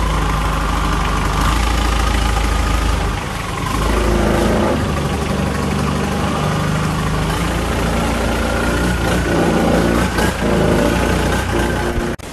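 Long-tail boat engine running steadily under way, its pitch rising slightly in the second half. It drops out for a moment near the end.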